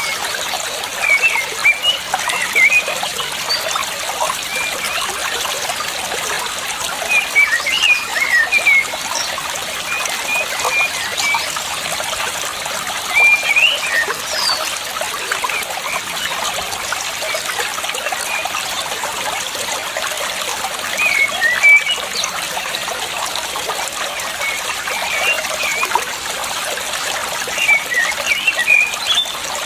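Water trickling steadily, with a bird chirping in short bursts of quick notes every few seconds.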